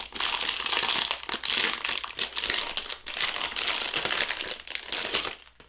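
Packaging crinkling and rustling by hand as a laser engraver's laser module is unwrapped. The handling is dense and irregular and stops near the end.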